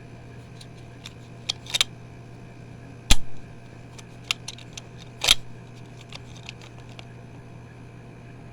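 Hard plastic toy parts being handled, giving scattered clicks and knocks, with two louder knocks about three and five seconds in.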